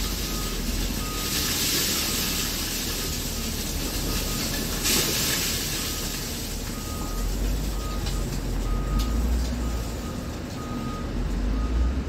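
A mining dump truck's reversing alarm beeping, a short beep repeating about every half second, over a steady rumbling noise of the engine and open air.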